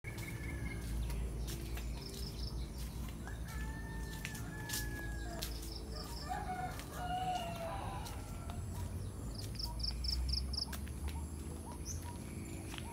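Rooster crowing a few seconds in, with crickets chirping as a steady high sound behind. A quick run of five short, high chirps comes near the end.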